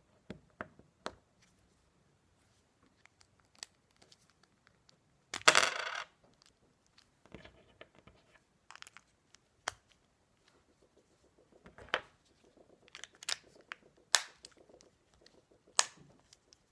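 Hands working a Honda remote key fob's plastic case during a battery change: scattered light clicks and snaps, with one louder clatter of about half a second about five seconds in and a run of sharper snaps in the last few seconds.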